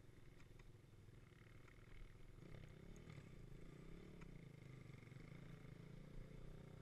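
Quad (ATV) engine idling faintly with a steady low rumble, a little louder from about two and a half seconds in.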